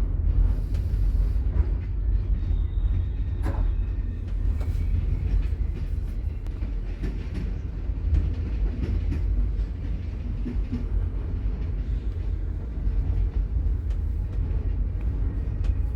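Sleeper train running on the rails: a steady low rumble with a few faint knocks and rattles.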